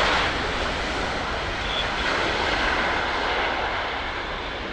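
Twin-engine Boeing 767-300ER jet airliner's engines running as it passes on landing: an even, broad jet noise that eases slightly over a few seconds.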